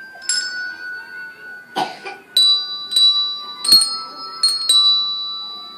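Hand bells rung one after another by a children's class playing a simple tune: about six separate strikes on bells of different pitch, each note ringing on and overlapping the next, with uneven spacing between strikes. A short burst of noise comes a little under two seconds in.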